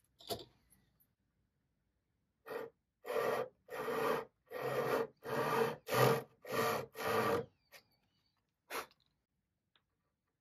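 Japanese-style pull saw cutting through a sheet of burl veneer in a quick run of about eight rasping strokes over some five seconds, with a single stroke shortly before and after.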